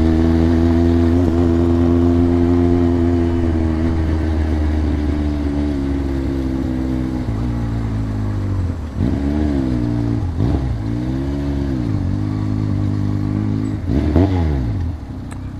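Motorcycle engine running steadily under way, then dropping and picking up again about three times in the second half as the throttle is eased off and reopened.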